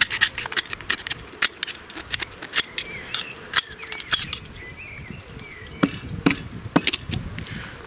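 Sharp, irregular metal clicks and light scraping as the cast iron float chamber of an old stationary engine's carburettor is handled and picked clean of debris, thick at first and then sparse. A bird chirps faintly in the background.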